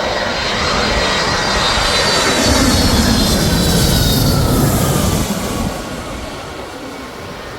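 Airliner on final approach passing low overhead, its jet engines roaring with a high whine that slowly drops in pitch as it goes by. The roar is loudest in the middle and falls away suddenly about three quarters of the way through.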